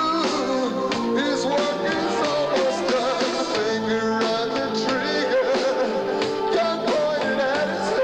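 Rock band playing live: drum kit and electric bass with other pitched parts that bend in pitch, steady and loud.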